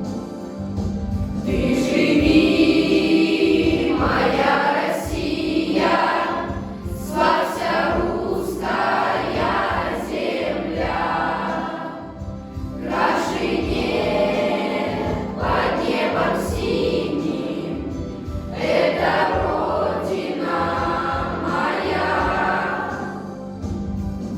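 A class of schoolchildren singing a song together in chorus over an instrumental accompaniment; the voices come in about a second and a half in and go on in phrases with short breaks.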